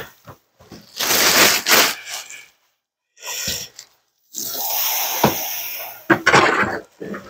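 Unpacking noises: cardboard box panels scraping and flexing and plastic packaging rustling, in irregular bursts, with a few sharp knocks near the end.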